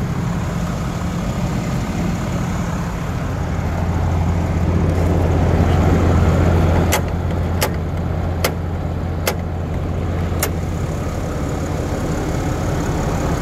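Ram 3500 Heavy Duty's 6.7-litre Cummins turbo-diesel idling with a steady low hum, a little louder for a few seconds midway. Five sharp clicks come a second or less apart after about seven seconds.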